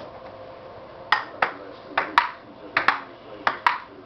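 Table tennis rally: a ping-pong ball clicking sharply off the table and the paddles, about eight clicks in quick pairs starting about a second in.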